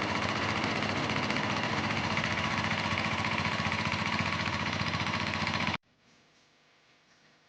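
Sveam 25 HP diesel engine running steadily while driving a 6-inch Niagara water pump. The sound cuts off abruptly near the end, leaving only faint background noise.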